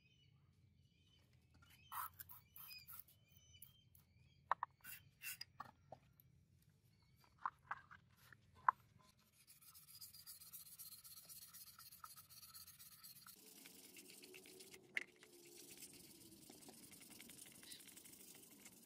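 240-grit sandpaper rubbed back and forth by hand over a wooden knife handle, a steady scratchy rasp that starts about halfway through. Before it, a few scattered sharp clicks.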